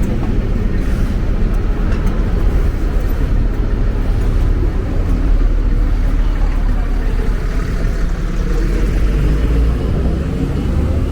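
Steady low rumble of a moving vehicle, unbroken and even.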